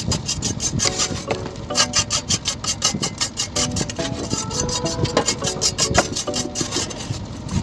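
Hand wire brush scrubbing the steel blade of a shovel in fast back-and-forth strokes, several a second, cleaning off rust before the repair.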